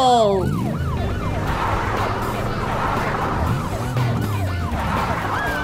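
Fire-engine siren on a fast yelp, its pitch rising and falling about three times a second, loudest in the first second and carrying on more faintly after.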